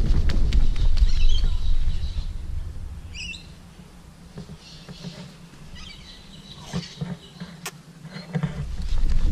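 Low rumble of wind and handling noise on the moving camera's microphone, fading after about three seconds and returning near the end. Birds chirp in the quieter middle stretch, with a quick run of chirps about three seconds in.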